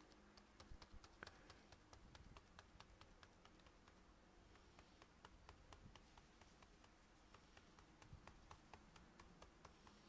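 Faint, quick taps of a foam sponge pouncer dabbed with acrylic paint onto a stencil on a canvas bag, several taps a second.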